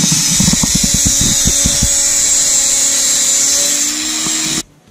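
Handheld electric rotary tool running at high speed with a steady high whine, grinding on the metal bracket of a fuel-tank sending unit, with an irregular rattle in the first couple of seconds as the bit works the metal. It cuts off suddenly near the end.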